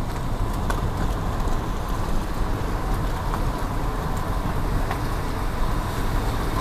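Car rolling slowly, with a steady low rumble of engine and tyres and faint small ticks.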